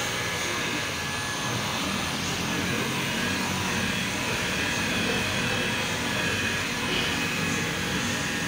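Electric rotary polisher running steadily, its pad buffing wax on a car's painted body.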